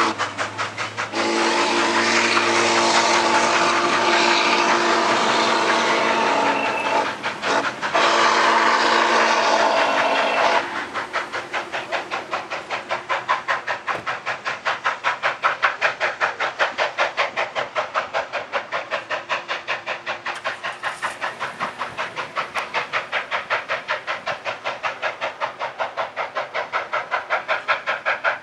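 Steam locomotive's chime whistle sounds a chord in long blasts for the first ten seconds or so. The engine's exhaust then chuffs in a steady, rapid beat as it pulls its passenger train away.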